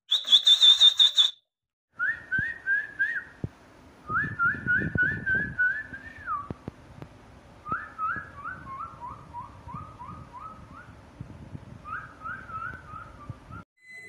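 Runs of short whistled notes, each a quick upward slide, about four a second in several bursts, one run stepping gradually lower in pitch. It opens with a brief, high, very rapid trill.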